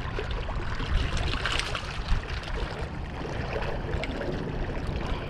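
Small waves sloshing and splashing against jetty rocks, with an uneven low rumble of wind on the microphone.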